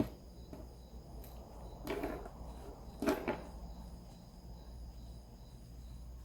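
Two brief handling sounds, about two and three seconds in, from hands working a felt and ribbon craft piece as a pin is pulled out, over a faint steady high-pitched drone.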